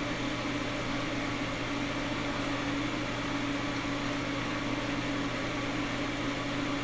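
Steady machine hum with an airy rush and a constant low tone, unchanging throughout: the running background noise of the blacksmith shop's fan or blower equipment.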